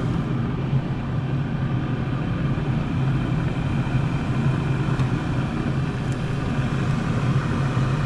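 Draft inducer motor of a Trane gas package furnace running with a steady hum, its burners not yet lit: the unit is being called for heat with the thermostat jumped out and has not fired.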